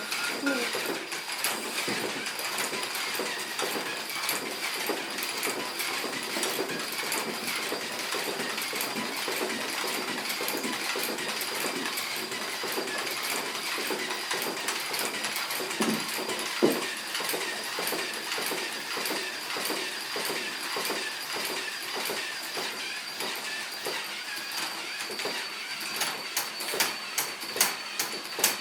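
A small motor running steadily, a thin high whine over an even mechanical rattle, with a couple of knocks about halfway through and quick clicking near the end.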